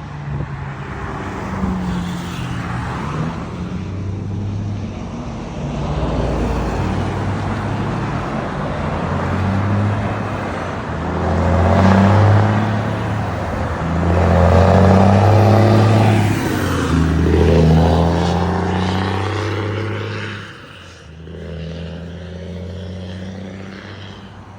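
Volvo FH truck's diesel engine through a newly fitted crackling 'estralador' exhaust, heard driving past: a deep, loud drone that changes pitch in steps. It is loudest about halfway through and falls off near the end.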